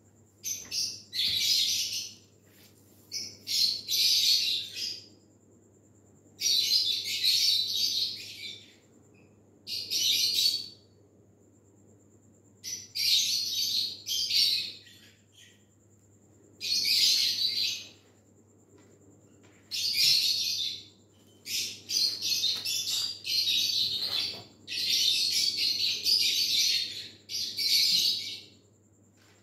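Birds chirping in repeated bursts of a second or two, about every three seconds, over a faint steady hum.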